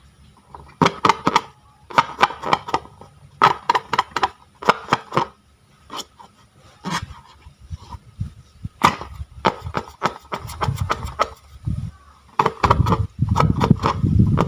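Slime being squeezed and worked by hand, giving repeated bursts of crackling and popping clicks as air pockets burst. A louder, lower squishing rises near the end.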